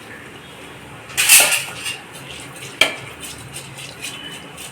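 A metal utensil scraping and knocking against a pressure cooker pot while rice is added to the boiling water: a short scrape a little after a second in and a sharp clink near three seconds.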